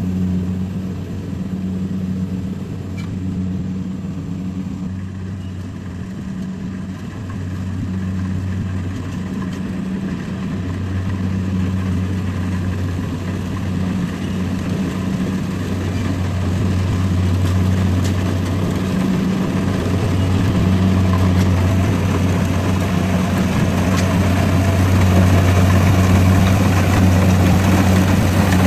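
Rice combine harvester's engine running steadily, a low hum that grows gradually louder toward the end.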